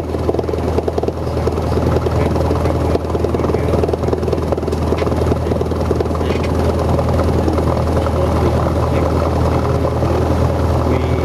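Cessna 172's piston engine and propeller running at a steady low power while the plane taxis, heard from inside the cabin as a constant low drone.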